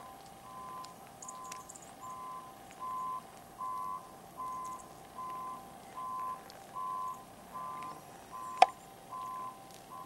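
Vehicle reversing alarm beeping steadily at one pitch, about three beeps every two seconds, with a single sharp click near the end.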